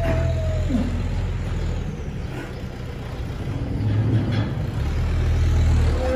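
Holstein dairy cows lowing: two deep, low moos, one at the start and another from about four seconds in.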